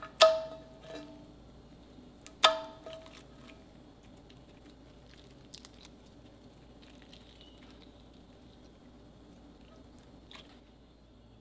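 Thick slime being pressed and pulled by hand, giving two loud sharp pops with a short ring, one just after the start and one about two and a half seconds in, then faint squishes and small clicks.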